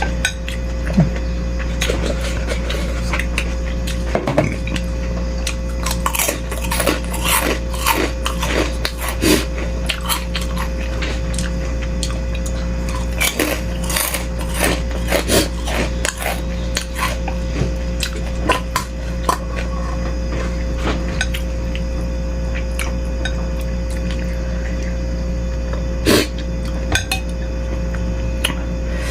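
Spoon and fork clinking and scraping against a bowl of beef rib meatball soup while eating, in many irregular sharp clicks, over a steady low hum.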